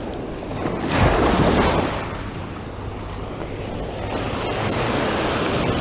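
Ocean surf washing and foaming close by, with wind buffeting the microphone; a wave surges loudest about a second in, then the wash carries on steadily.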